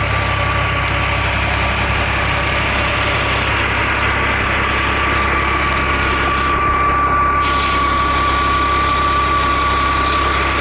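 Al-Ghazi tractor's diesel engine running steadily under load, turning a tubewell pump through a long PTO drive shaft, with a steady high whine over the engine.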